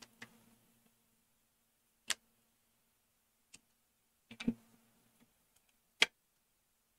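A few separate sharp clicks and knocks as a screwdriver and the revolver's metal frame and parts are handled and set down on the bench mat while the single-action revolver is taken apart. There is one click about two seconds in, a short cluster about halfway, and the loudest single click near the end.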